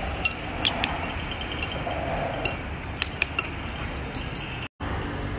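Light clinks of utensils against a small noodle bowl while eating, eight or so scattered taps over steady background noise. The sound cuts out completely for a moment near the end.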